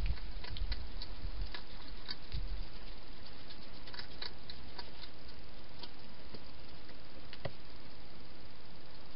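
A wild hedgehog at a plastic-box feeding station making scattered small clicks and taps as it comes out of the box, mostly in the first few seconds, with a low bump at the start and another about two and a half seconds in. A steady hiss runs underneath.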